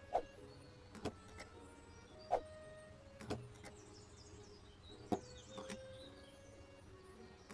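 A series of short, sharp light taps or clicks at irregular intervals, about one a second, some ringing briefly.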